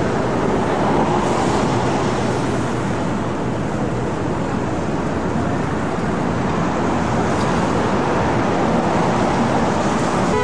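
Steady city street traffic noise from cars and taxis driving past, heard through a camcorder's built-in microphone.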